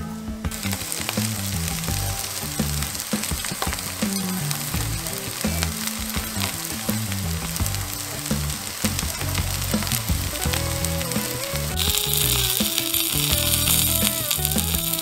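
Food sizzling and frying in a hot pan, a steady hiss that grows louder about twelve seconds in.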